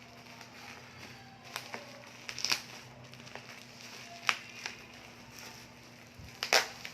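Scattered sharp clicks and light crinkles of a capsule bottle and its packaging being handled, over a faint steady hum.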